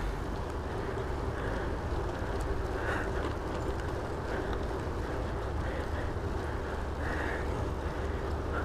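Steady wind noise on an unshielded GoPro microphone during a bicycle ride, with the low rumble of the tyres rolling on pavement underneath.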